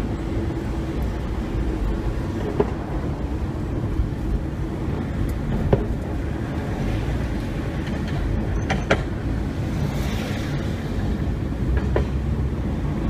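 Hankai Tramway streetcar running along street-level track: a steady low rumble with a few sharp clicks scattered every few seconds.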